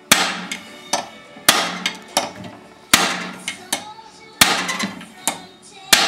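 Hammer blows on a piece of aluminium held over the end of a small engine's crankshaft, with the flywheel levered up from below, to shock a tight flywheel loose. About nine sharp metallic strikes come at a steady pace, roughly one every 0.7 s, each ringing briefly.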